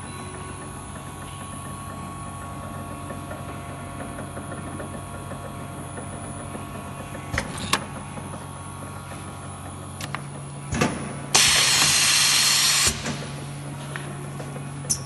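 Bagel Systems iLam Pro laminating and foiling machine running with a steady low hum and a few sharp mechanical clicks. A little past the middle comes a loud hiss lasting about a second and a half, the loudest sound here.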